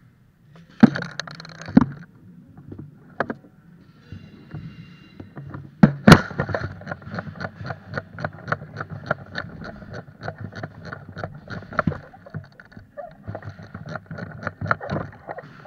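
Quick footsteps at about three to four a second on a hard floor. Several sharper, louder knocks come in the first seconds and again about six seconds in.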